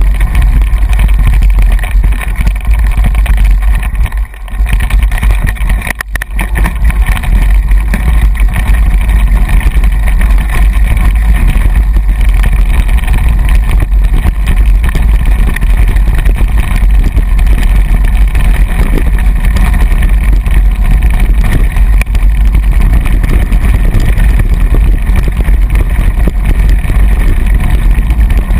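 Heavy wind buffeting and rumble on the microphone of a camera moving quickly along a dirt track. It is loud and steady, briefly easing twice, about four and six seconds in.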